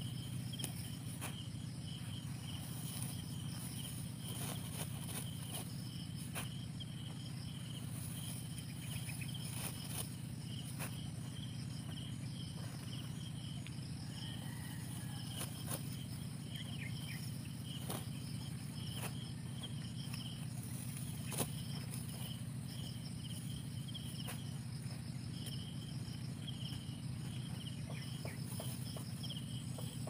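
Insects chirping in a steady, rapid pulse over a steady low hum, with scattered rustles and snaps of dry rice stalks being gathered by hand.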